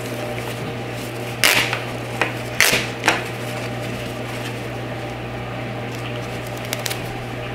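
Stitching tearing in a few short rips, mostly in the first half, as sewn-on curtain track tape is pulled off the fabric, breaking the threads. A steady low hum sits underneath.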